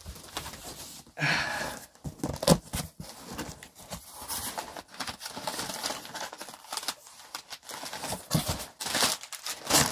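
Paper packing crinkling and rustling as a box is handled and opened, with irregular scrapes and a sharp knock about two and a half seconds in.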